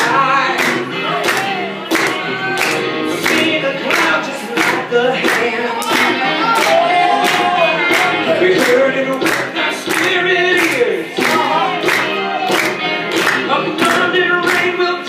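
Group of voices singing a worship song to music, with a steady beat of about three sharp strikes a second.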